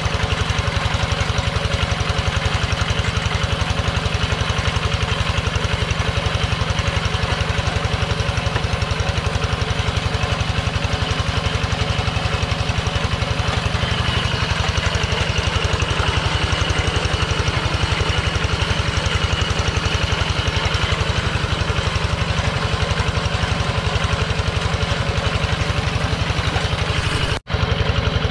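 Kubota two-wheel hand tractor's single-cylinder diesel engine running steadily under load with a fast, even firing beat as its cage wheels work through paddy mud, with a momentary break in the sound near the end.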